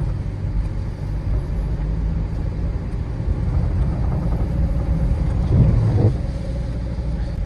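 Car driving, heard as a steady low rumble of engine and road noise, with a brief louder swell about five and a half seconds in.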